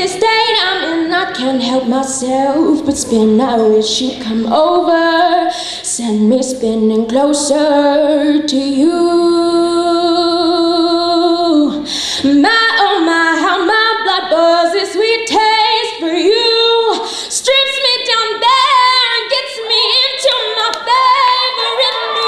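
A young woman singing solo into a microphone, apparently unaccompanied, moving through sung phrases. About nine seconds in she holds one long note with vibrato for around three seconds.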